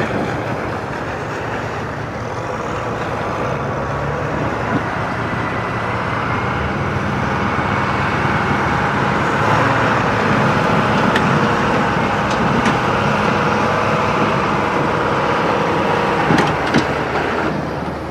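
Engine of a heavy snow-clearing machine running under load while it pushes a pile of snow, growing louder through the middle.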